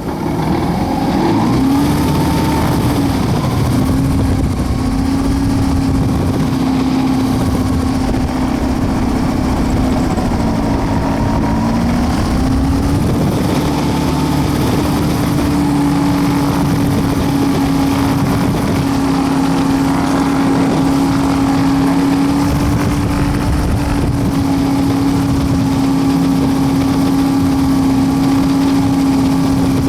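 Piston engine and propeller of a WAR Corsair homebuilt half-scale replica running at taxi power, a steady drone. Its pitch dips briefly twice, about two seconds in and again around a third of the way through, as the throttle is eased.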